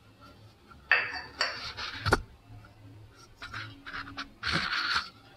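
Steel bowl clinking and scraping against a steel plate as gram flour is tipped and tapped out of it, in several short bursts, the sharpest clink about two seconds in.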